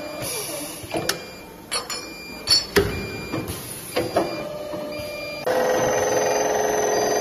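Automatic CNC tube chamfering and boring machine working through its cycle: a brief falling tone in the first second, then a series of sharp metallic clacks and knocks from its mechanism. About five and a half seconds in, a steady motor hum starts up.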